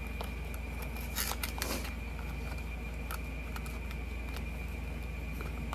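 Steady hum of a room air conditioner, with a few soft clicks and rustles of small cosmetic packaging being handled about a second in and again near three seconds.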